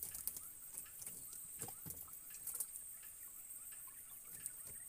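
Faint scattered light taps and clicks, with a little water trickling, as a fish trap holding fish is handled, over a steady high hiss.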